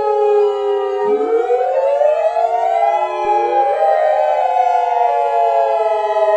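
Synthesized siren-style alert tone: several layered electronic tones wail and slide up and down in pitch, overlapping one another. About a second in, a low tone sweeps up into the mix.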